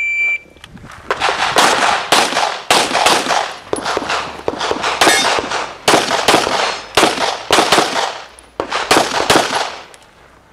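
Electronic shot timer's start beep, then a string of pistol shots, many fired in quick pairs, as an IPSC shooter runs a course of fire. The last shot comes about nine and a half seconds after the beep.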